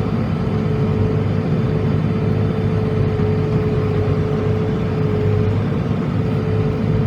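New Holland T7.260 tractor's six-cylinder diesel engine running steadily under heavy load while pulling a plough, with a steady whine over the rumble.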